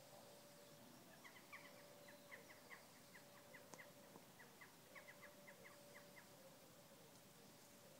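Faint bird calls: a quick run of short chirping notes, about three or four a second, lasting some five seconds, over a faint steady hum.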